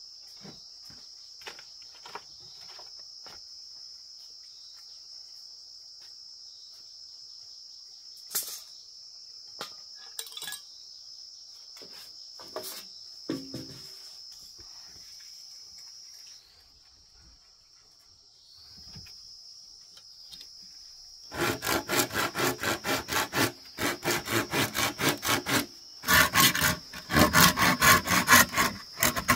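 Insects chirring steadily at a high pitch, with a few scattered light knocks; the chirring drops out for a couple of seconds in the middle. About two-thirds of the way through, a hand tool starts rasping back and forth on bamboo, about three fast strokes a second, with a short pause before the strokes resume louder.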